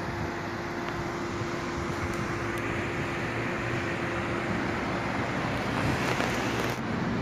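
Steady road traffic noise from passing cars, with a steady hum underneath that stops about five seconds in.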